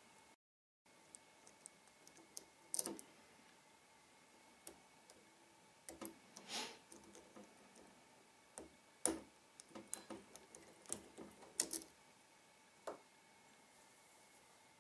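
Faint, irregular clicks and small scrapes of a lock pick and tension wrench working the pins inside a Trioving 5632 padlock, coming more thickly in the second half.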